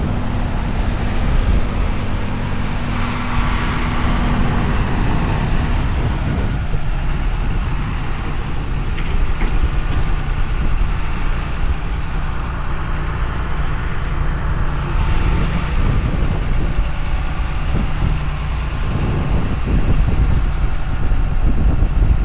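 Large diesel engine of a harvest machine running steadily under load, a loud low drone with a rumbling rattle throughout.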